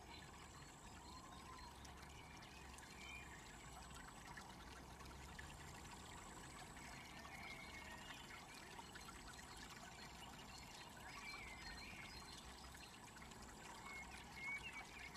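Faint trickle and splash of a small garden fountain, with a few faint high chirps now and then.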